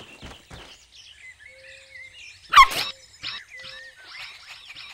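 Cartoon puppy's quick, evenly spaced running footsteps that stop within the first second, then a single short bark about two and a half seconds in, the loudest sound. Faint bird chirps sound behind it.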